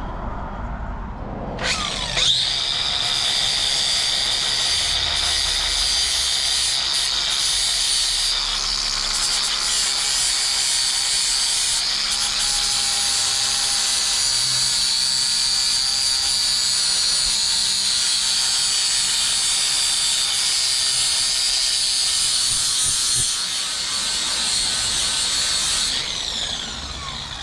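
Electric angle grinder spinning up about two seconds in, then running steadily with a high whine while grinding metal, and winding down near the end.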